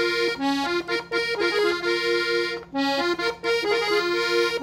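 Hohner Concerto piano accordion playing a melody slowly, as short separate notes on the right-hand keyboard. The phrase breaks off briefly about two and a half seconds in and starts over.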